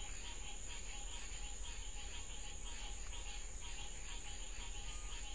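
Night insects, crickets, chirping in a steady chorus with an even pulsing rhythm, over a constant high hiss and a low hum.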